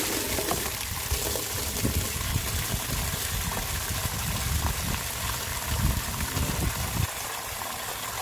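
Water splashing and sloshing in a stainless steel bowl as raw eels are rinsed and rubbed by rubber-gloved hands, with water pouring into the bowl at the start. The heavier low splashing stops about seven seconds in.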